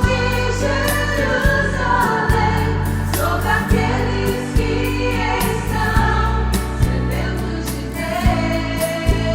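Gospel song: sung vocals with choir over a band, with a sustained bass line and drum hits.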